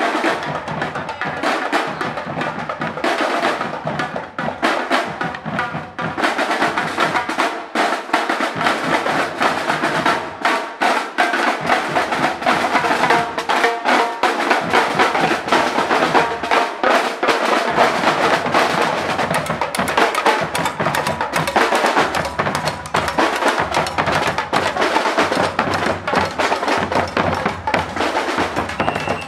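Marching drum corps playing: field snare drums and Pearl marching bass drums struck together in a dense, continuous rhythm.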